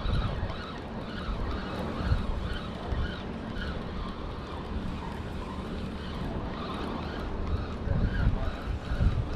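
Wind buffeting the microphone over a steady low rumble, with a faint repeating whirr as a spinning reel is wound to bring in a hooked bass.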